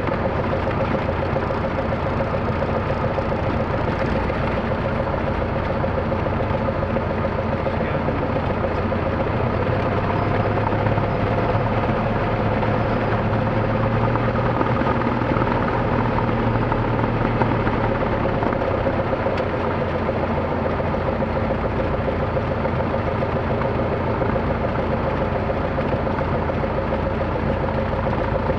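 Light aircraft's piston engine running at low taxi power with the propeller turning, a steady droning note that grows a little louder and deeper for several seconds in the middle.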